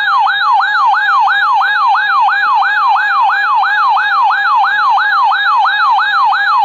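Electronic siren-style alert tone announcing a tornado watch: a rapid yelp sweeping up and down about four times a second over a steady high tone.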